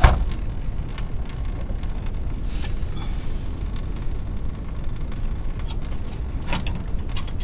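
Steady low rumble with a few light clicks and knocks as a hand grips and handles a car's fuel filter under the vehicle.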